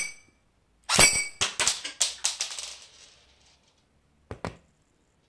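A Cyma Glock 18C electric airsoft pistol fires a steel BB, which strikes the glass wine bottle with a sharp ringing clink without breaking it. The BB then bounces away in a run of ticks that come quicker and fainter, dying out after a couple of seconds. Two light clicks follow near the end.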